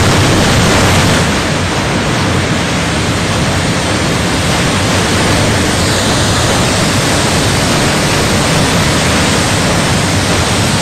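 Floodwater rushing in a swollen river and pouring over a weir, a loud, steady roar of water.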